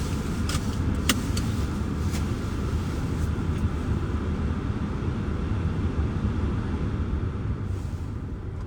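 Car engine idling, heard from inside the cabin as a steady low rumble, with a few sharp clicks in the first couple of seconds.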